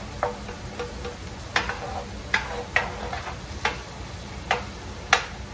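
A slotted spatula scrapes and taps against a cast-iron skillet as ground beef is stirred, about seven uneven strokes with the sharpest near the end. Steady frying sizzle runs underneath.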